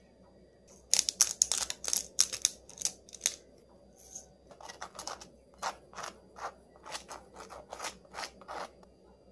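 Pepper grinder twisted over the food: a quick run of loud, crunchy grinding clicks in the first few seconds. Then softer scraping strokes, a few per second, as a fork spreads mustard across toast.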